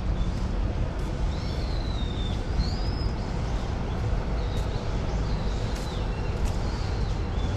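Birds calling in short, gliding whistles, several times, over a steady low background rumble.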